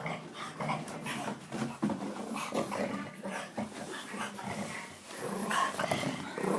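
A dog growling in a low, rough, continuous rumble.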